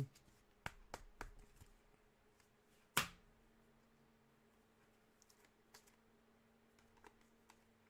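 Trading cards being handled, making a few faint clicks and taps, with one sharp snap about three seconds in. A faint low hum comes in just after it.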